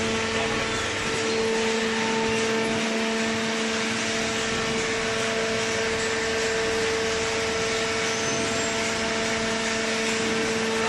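Hydraulic vertical baler's electric motor and pump running, a steady hum with a constant tone over a even mechanical noise.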